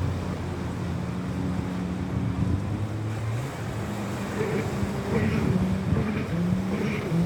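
A motorboat engine running, its low drone shifting up and down in pitch now and then.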